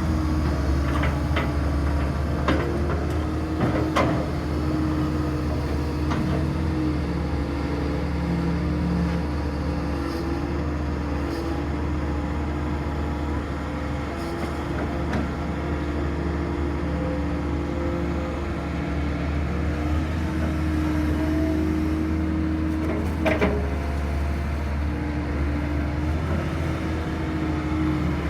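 Hydraulic excavator working: its diesel engine runs steadily under load while a hydraulic tone shifts up and down in pitch, with a few sharp knocks, most near the start and one about 23 seconds in.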